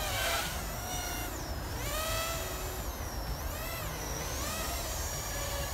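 Diatone GT-R349 3-inch FPV racing quadcopter's motors and propellers whining. The pitch dips and climbs again several times as the throttle changes, then holds steady near the end, over a low rumble.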